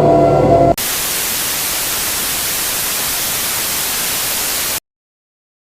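The tail of a choral piece cuts off abruptly and gives way to steady, even television static hiss, the sound of a channel gone off the air. The hiss stops dead about five seconds in.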